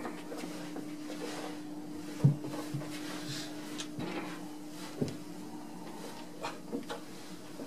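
A steady low hum with a few scattered knocks and handling bumps, the loudest a sharp thump about two seconds in.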